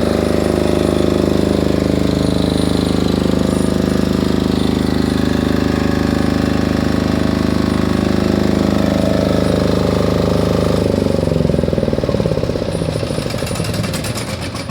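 A 6.5 kVA silent diesel generator running steadily. About eleven seconds in it is shut off and winds down, its firing beats slowing and fading as the engine coasts to a stop.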